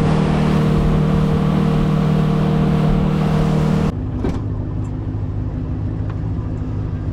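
Boat engine running steadily at speed, with a rush of water and wind over it. About four seconds in it cuts to a quieter engine running at a lower pitch.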